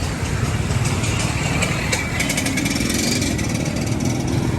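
An engine running steadily with a low rumble, with faint rapid clicking about two seconds in.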